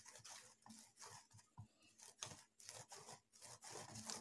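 Hands kneading a soft rice-flour dough in a stainless steel plate: faint, irregular squishing and rubbing strokes, several a second.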